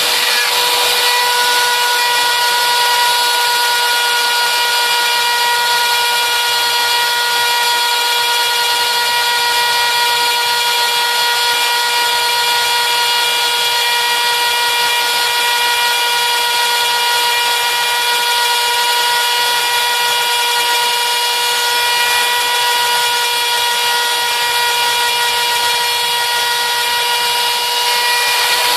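RotoZip spiral saw on a homebuilt CNC machine running at full speed with a steady high whine, its wood-cutting bit slowly cutting through wood with a constant hiss.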